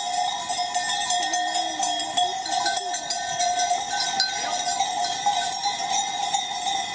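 Many sheep bells clanking and ringing continuously as a large flock of sheep walks past.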